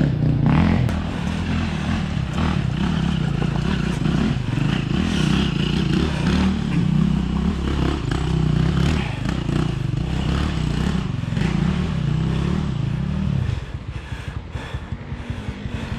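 Enduro motorcycle engine running with shifting revs, then dropping quieter about thirteen seconds in to a pulsing idle.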